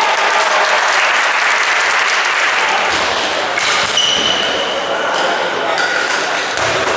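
Spectators clapping and cheering after a table tennis point, fading after about three seconds. Then come the light pings of celluloid table tennis balls bouncing as play resumes.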